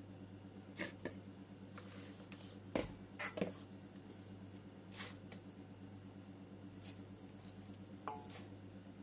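Hands at work potting a plant in a ceramic pot: scattered soft taps, scrapes and rustles of soil and pot, about eight in all, over a steady low hum.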